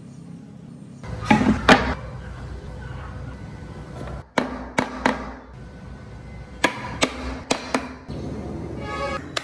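Solid wooden blocks knocking against each other and the wooden bench as they are set down and fitted together by hand. There are two loud knocks about a second in, then a series of sharper clicks and taps.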